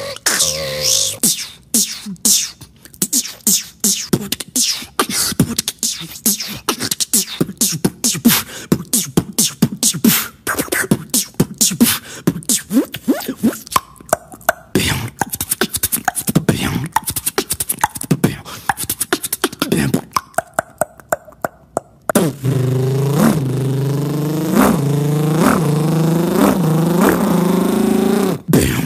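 A beatboxer making sound effects with his mouth: rapid clicks and percussive hits for most of the stretch, then about three-quarters of the way through a switch to a held, buzzing voiced tone whose pitch dips over and over at a steady pace.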